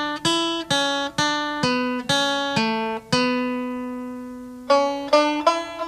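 Instrumental music on a plucked string instrument: single picked notes at about two a second, one note left ringing for about a second and a half near the middle, then quicker notes again.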